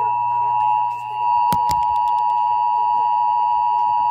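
Emergency Alert System two-tone attention signal: two steady tones sounded together, harsh and loud. It dips briefly about a second in, with a few sharp clicks just after.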